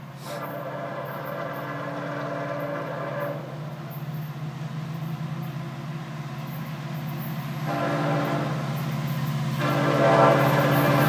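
A diesel freight locomotive's multi-note air horn sounding as the train approaches a grade crossing: one long blast, a short one about eight seconds in, and another long one starting near the end. Underneath, the low rumble of the oncoming locomotive grows steadily louder.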